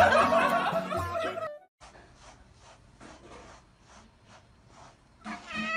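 Music with voices for the first second and a half, cutting off abruptly. Then faint, even strokes of a grooming brush through a cat's fur, about three a second. Near the end the cat starts a loud meow.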